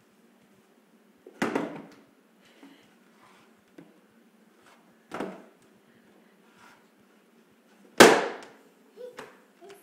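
A hollow plastic tub knocking against a hardwood floor: three sharp knocks a few seconds apart, the loudest about eight seconds in, then a couple of lighter taps.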